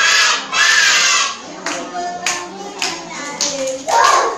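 A group of young children calling out together in loud unison, with a run of about five sharp hand claps in the middle before the voices come in loudly again near the end.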